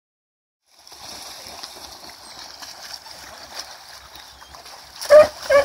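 Shallow lake water splashing and sloshing as dogs and people wade. About five seconds in come two short, loud dog barks.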